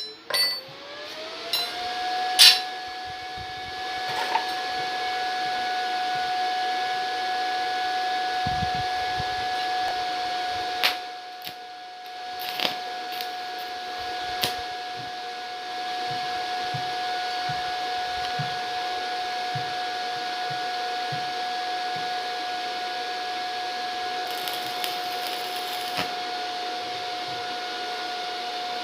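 Btec mini welding machine running, its fan or motor whine rising in pitch over the first couple of seconds as it spins up, then holding a steady whine under a hum. A few sharp clicks or knocks come through, about 2, 11, 13, 14 and 26 seconds in.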